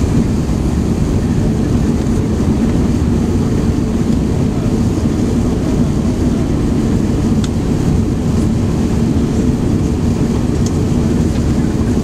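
Cabin noise inside an Airbus A380 under way after takeoff: its engines and airflow make a steady deep rumble with a low hum.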